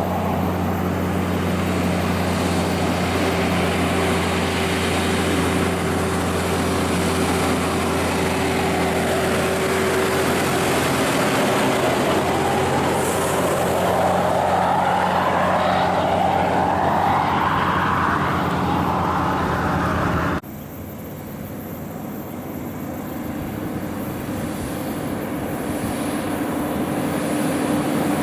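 A heavy diesel log truck and its loaded trailer run past with a steady engine note, and a whine rises and falls as they go by. After an abrupt cut, a second heavy diesel truck, a Scania log truck, is heard approaching, its engine growing louder.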